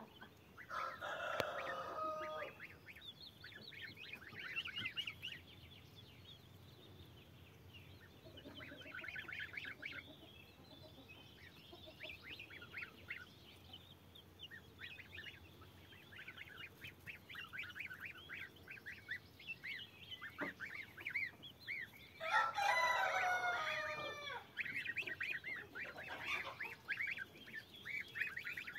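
Goslings and chicks peeping in rapid high-pitched runs throughout. A louder, lower call from a larger bird comes in twice, about a second in and again about 22 seconds in.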